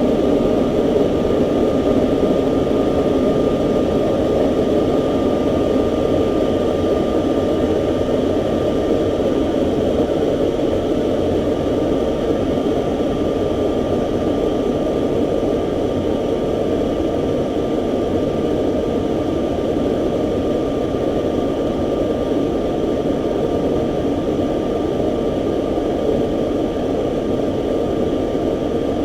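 Jet engine running steadily: a loud, even rush with a thin steady whine over it.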